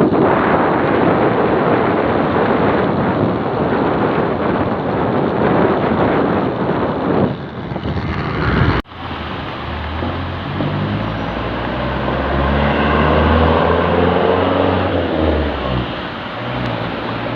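Loud wind buffeting the microphone in rainy weather. It cuts off abruptly about nine seconds in, and a lower rumble with a steady, stepwise-shifting drone takes over.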